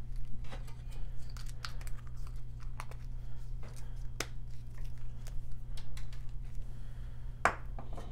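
Hands handling small survival-kit items and packaging: irregular light clicks, taps and crinkling of plastic, with a steady low hum underneath.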